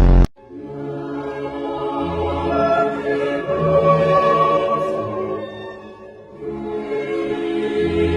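Choral music: several voices holding long sustained notes, swelling and easing off, after a brief loud burst right at the start.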